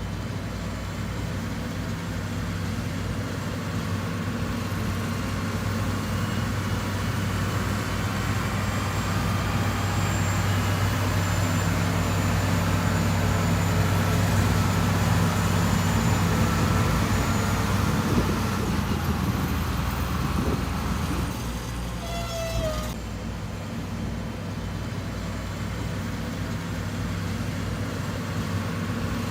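Heavy diesel engine of earthmoving equipment running steadily under load, growing louder and then easing off about two-thirds of the way through, with a brief squeal just after.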